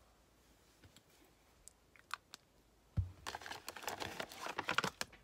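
Hands handling small packaging: a few faint clicks, then a soft thump about three seconds in, followed by a couple of seconds of quick crinkling and clicking.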